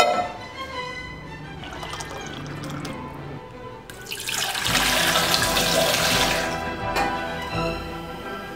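Water poured from a mug into a metal saucepan: a rushing splash that starts about four seconds in and lasts a couple of seconds, over orchestral music. A sharp knock at the very start as the pan is set down on the stone counter.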